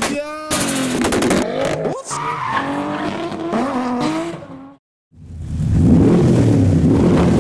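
Tuned car engines revving hard, their pitch rising and falling, mixed with tyre squeal from wheelspin and drifting. After a short break of silence about five seconds in, a deep, loud rumble takes over.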